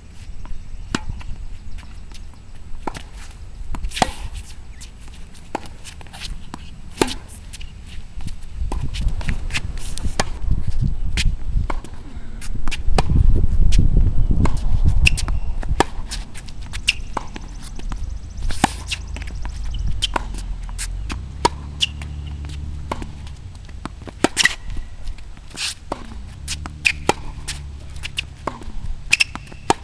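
Tennis rally on a hard court: sharp, irregular pops of rackets striking the ball and the ball bouncing, with a low rumble swelling up in the middle.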